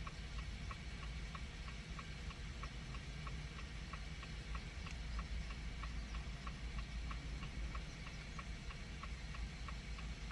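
Steady electronic ticking, about three short ticks a second, over a low hum.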